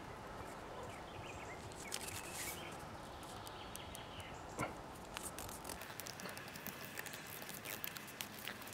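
Plastic grafting tape being stretched and wound tightly around a fresh fruit-tree graft union to bind and seal it, with fingers rubbing on tape and bark: irregular small clicks and crackles, more of them in the second half.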